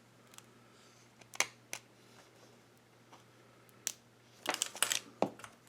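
Sharp clicks and crackles of a toy blind bag being handled and cut open: a few single clicks, then a quick cluster of them about four and a half to five seconds in.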